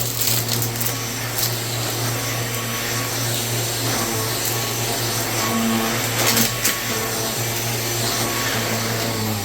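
Vacuum cleaner running steadily, a motor hum under a rushing airflow noise, with a few sharp clicks near the start and again about six seconds in.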